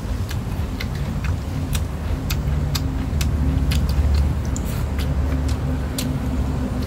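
Close-up eating sounds: sharp clicks of chewing and lip-smacking, one or two a second, from people eating charred grilled snakehead fish. Under them runs a steady low rumble that swells a little in the middle.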